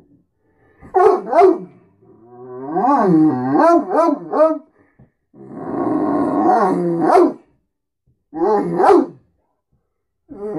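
Great Dane "talking": a run of drawn-out, warbling yowl-howls whose pitch bends up and down, in about five bouts with short silences between, the longest lasting around two seconds. It is demanding food and attention.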